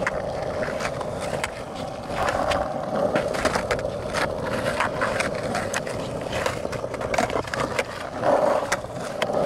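Skateboard wheels rolling over rough asphalt, a steady grinding rumble, broken by irregular sharp clacks and taps as the board hits the ground during freestyle tricks.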